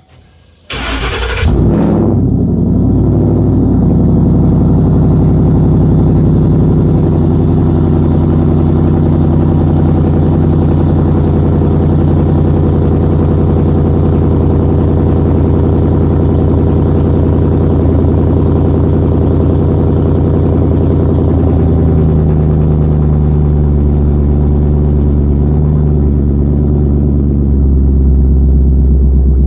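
Ford Mustang GT Coyote V8 cold-started through a catless exhaust with an X-pipe, resonators and quad tips: the starter cranks briefly about a second in, the engine catches, then settles into a loud, steady fast cold idle.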